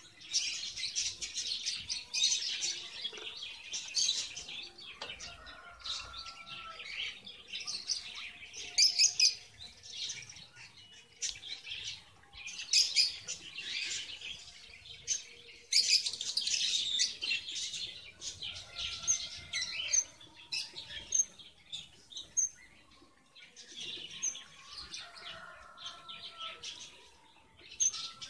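Red avadavats (strawberry finches) chirping and twittering: quick runs of high-pitched chirps, with a couple of short lulls.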